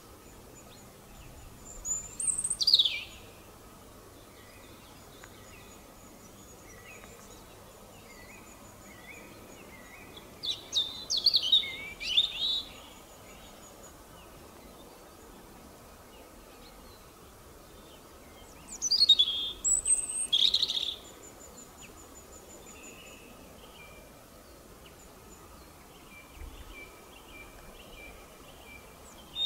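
European robin singing: three short phrases of thin, high, quickly changing warbling notes, each one to two seconds long, with pauses of several seconds between them, over a faint steady background noise.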